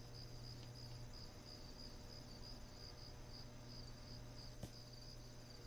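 Cricket chirping steadily, about three high chirps a second, over a faint low electrical hum, with one faint click near the end.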